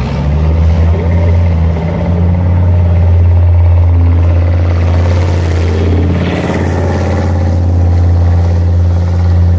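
Leopard 1-family tracked armoured vehicle's V10 diesel engine running under load as it drives past through mud, a deep steady drone that is loudest about three to four seconds in.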